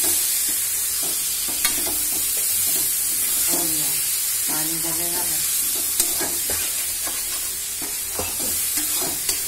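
Green peas and masala sizzling in a metal kadhai while a spatula stirs and scrapes through them, with a couple of sharp clicks of the spatula against the pan.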